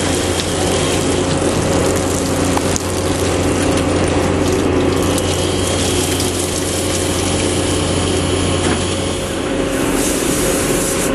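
Research ship's deck machinery running steadily, a winch hauling a Ponar grab sampler up out of the water and aboard, with a low hum and a cluster of steady tones; the low hum drops out about nine seconds in.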